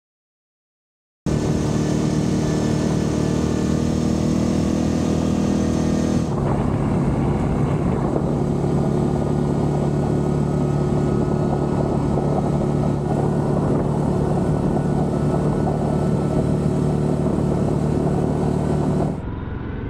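Yamaha Grizzly 700 ATV's single-cylinder engine running steadily while riding along a gravel forest road. It starts suddenly about a second in, changes tone about six seconds in, and drops in level just before the end.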